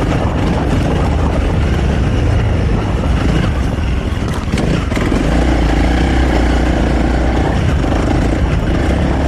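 Honda CRF300L's single-cylinder four-stroke engine running under way through stock intake and exhaust, mixed with heavy wind and ground noise. The engine settles into a steady note for a couple of seconds in the middle.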